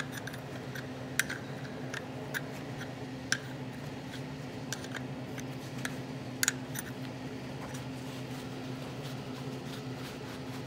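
Box-end wrench clicking on a nut welded onto a broken bolt as the rusted bolt is worked out of a cast-iron part. There is a sharp metal click about once a second, a quick double click about two-thirds of the way in, then only a few more, over a steady low hum.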